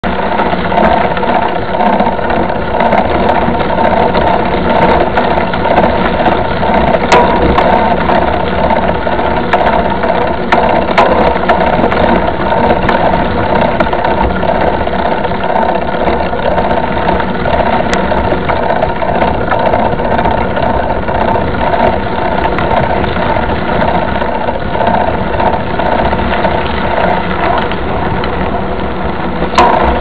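Mountain bike rolling along a dirt road, heard from a bike-mounted camera: a steady mechanical rattle and tyre noise, with a few sharp knocks from bumps.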